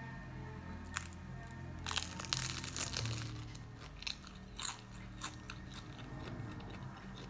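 Crunchy bites and chewing of fried turon, a banana-and-meat spring roll with a crisp fried wrapper, in crackly crunches about a second in, in a cluster around two to three seconds, and again around four to five seconds. Soft background music plays underneath.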